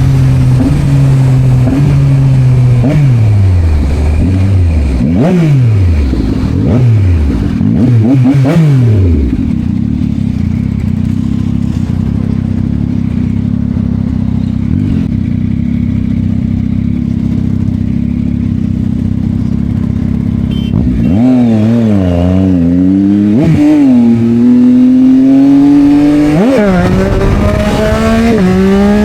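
Yamaha MT-09's three-cylinder engine through an Akrapovic exhaust, slowing with falling pitch and quick throttle blips during the first nine seconds. It then idles steadily for about ten seconds and accelerates away with rising pitch, dropping back at each gear change.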